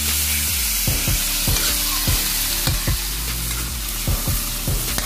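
Pieces of meat sizzling in hot oil in a wok, with a steady hiss. A spatula scrapes and knocks against the pan in short strokes, about one or two a second, as the meat is stirred.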